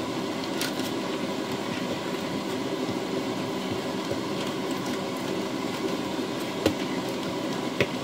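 Bread dough being kneaded and pressed by hand on a silicone baking mat over a steady background hum, with two sharp knocks near the end.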